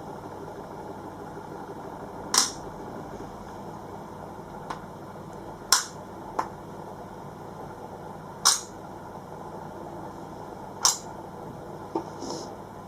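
Sharp clicks of a caulking gun's trigger every two to three seconds, with fainter clicks between, as a cartridge of solvent-free builder's adhesive is squeezed out.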